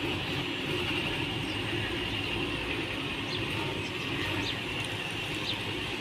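Steady background hum and hiss with a few faint clicks from a handheld RJ45 crimping tool being handled.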